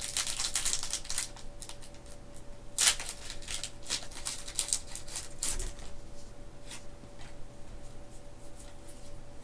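A Pokémon TCG booster pack's foil wrapper being opened and the cards handled: a dense run of crinkling and rustling in the first second, a sharp crinkle about three seconds in, then scattered softer crackles.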